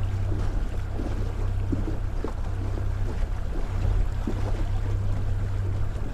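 Boat's outboard motor running steadily at trolling speed, a constant low hum, with wind and water noise over it.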